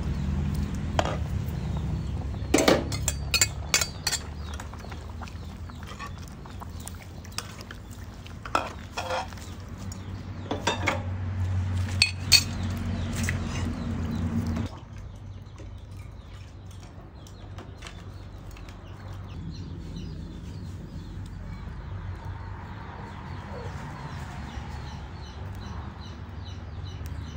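Metal ladle clinking and scraping against a stainless steel cooking pot as soup is stirred, in irregular knocks over a steady low background; the clinks stop about halfway through, leaving only a quieter background.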